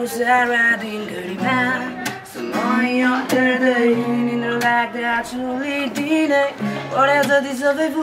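A man singing while strumming an acoustic guitar.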